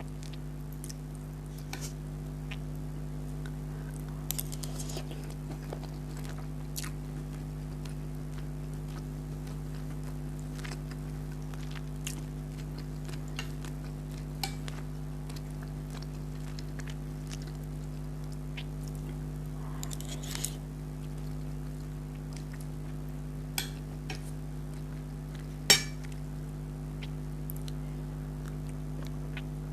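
Close-up eating sounds of curry and rice: chewing, with scattered clinks and taps of a utensil on a dish. There are two short scraping smears, and one sharp clink near the end is the loudest sound, all over a steady low hum.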